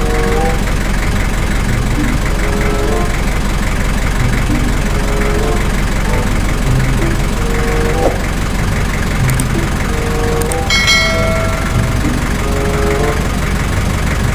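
Heavy truck engine running steadily with a low rumble, with short tones over it and a brief high beep about eleven seconds in.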